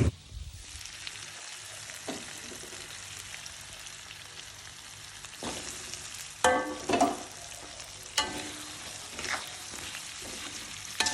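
Food sizzling steadily in hot oil in a pan while it is stirred, with several sharp clinks and scrapes of a utensil against the pan, a couple of them ringing briefly about two-thirds of the way in.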